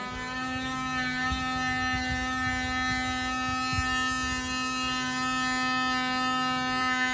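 A steady tone at one unchanging pitch, held for about eight seconds.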